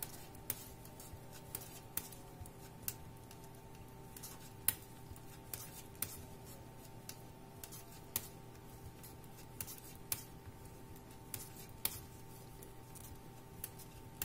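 Knitting needles clicking as stitches are purled, a short sharp tick roughly once a second at an uneven pace, over a faint steady hum.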